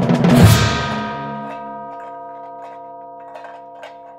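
Musical sting: a drum roll ends on a crash about half a second in, leaving a bell-like chord ringing and slowly dying away. Faint soft clicks sound under the fading chord.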